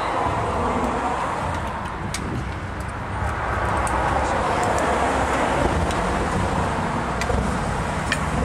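Motorcycle engine running at riding speed with steady wind and road noise.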